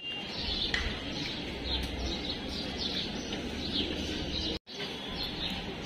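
Birds chirping in short, repeated falling calls over steady street background noise, with a brief dropout to silence about four and a half seconds in.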